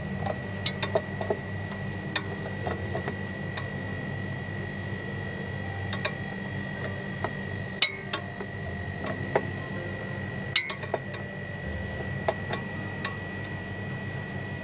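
Scattered light metal clicks and clinks from a metal hand tool working at a pipe fitting on an air-conditioner compressor. Under them runs a steady low hum with a thin steady high tone.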